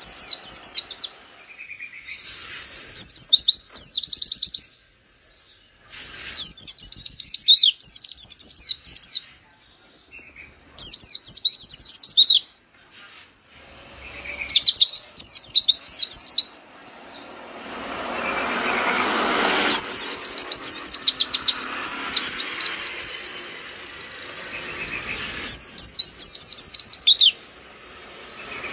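Caged white-eye (pleci) singing in fast bursts of very high chirping notes, each phrase a second or two long with short pauses between. About two-thirds of the way through, a rushing noise swells up under the song and fades away.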